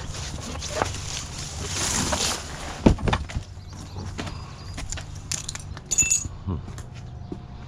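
A run of knocks, clicks and a short ringing clink, like hard objects being handled and set down, over a low steady hum. The sharpest knock comes about three seconds in, the clink about six seconds in.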